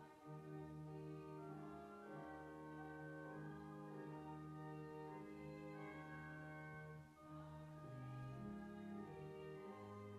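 Church organ playing a hymn in held chords that change every second or two.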